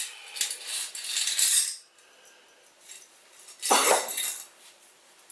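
Loose metal screws rattling and jingling in a container as they are picked through, for about the first two seconds, then a second short clatter about four seconds in.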